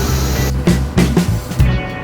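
Background music with a steady beat and bass line. A high steady hiss under it cuts off about half a second in.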